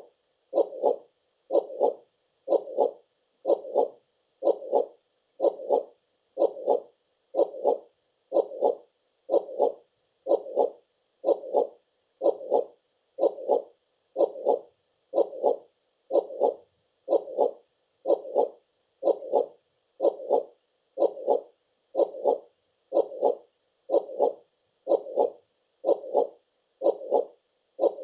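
Heartbeat sound effect: a steady lub-dub double thump repeating about once a second.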